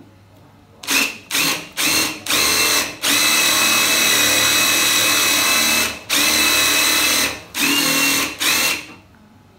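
DeWalt cordless impact driver boring a counterbore hole into bengkirai hardwood. The motor whines in several short trigger pulls, then runs in two long stretches of a few seconds each, then in two more short pulls. Each start rises quickly to a steady pitch.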